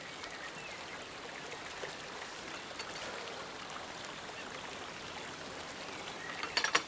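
Steady trickle of water running through a garden rock stream. Near the end comes a quick cluster of sharp clicks as the china tea set on the table is handled.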